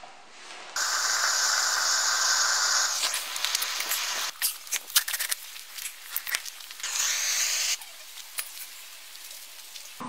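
Propane burner hissing in two spells, about two seconds and then about one second long, with scattered clicks and crackles between them.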